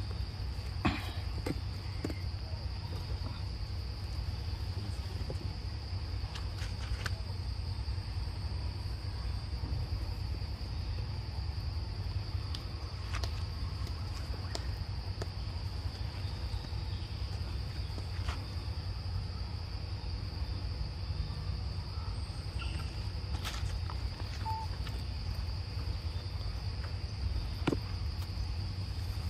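Steady high-pitched drone of forest insects, one unbroken tone throughout, with scattered faint clicks and rustles.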